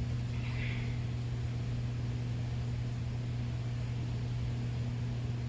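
Steady low hum with an even hiss, with a brief soft rustle about half a second in.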